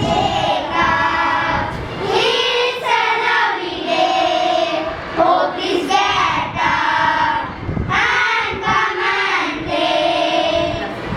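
A group of children singing together in unison, in held notes with short breaks between phrases.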